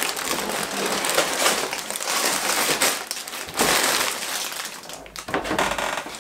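Lego set's plastic bags of bricks tipped out of the box all at once, a loud rustling, rattling rush in two pours, the second starting about three and a half seconds in and dying away after about five seconds.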